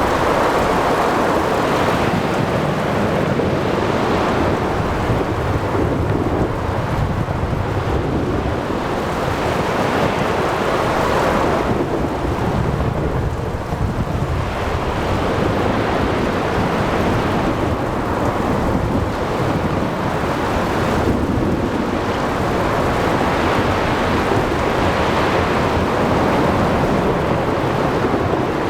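Thunderstorm at sea: low rolling thunder over steady rain, with waves breaking and wind blowing. The sound is a continuous wash that swells and eases slowly.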